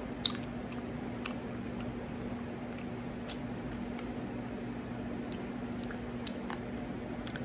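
Someone chewing fried chicken close to the microphone: scattered wet mouth clicks and smacks over a steady low hum.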